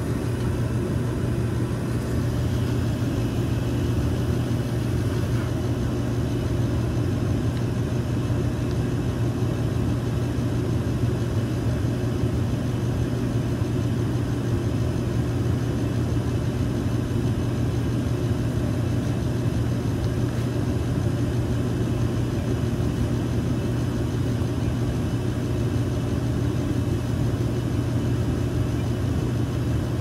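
York gas furnace running steadily while it fires: a constant low hum with an even rush of air from the draft inducer fan and burners.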